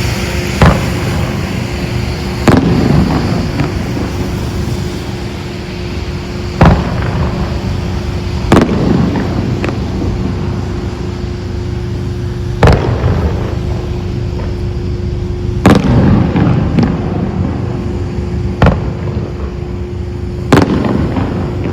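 Aerial fireworks bursting: about eight sharp bangs a few seconds apart, some followed by a brief crackle, over a steady low rumble.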